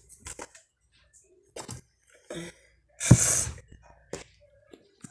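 Light clicks and knocks of a plastic cake container being handled, then about three seconds in a single short, loud, hissy burst.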